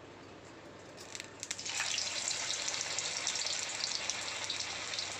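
Sabudana vada batter dropped into hot oil in a frying pan begins to sizzle: a few crackles about a second in, then a steady sizzle with dense crackling from about two seconds on.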